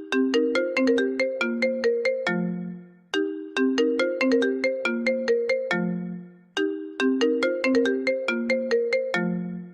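iPhone ringtone playing: a short, bright melody of quick notes, heard three times over, each phrase ending on a low note that fades out.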